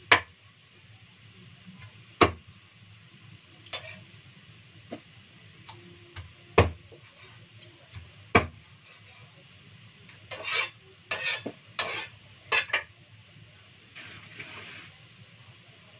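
Kitchen knife chopping frog pieces on a wooden chopping board: single sharp chops a couple of seconds apart, then, about ten seconds in, a quick run of scraping and clattering.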